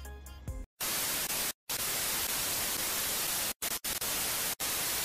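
Television static sound effect: an even hiss of white noise starting about a second in, cut off abruptly by several split-second dropouts, as a glitch transition over a distorted colour-bar test pattern.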